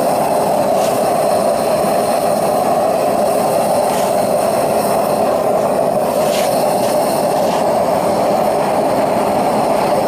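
Propane torch burners firing into a small melting furnace: a loud, steady rush of flame, with a few faint ticks.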